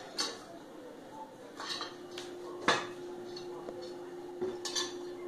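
Dishes and utensils clattering in a stainless steel sink as a baby's hands knock them about: a few separate knocks, the loudest a sharp clank about two and a half seconds in. A faint steady hum starts about two seconds in.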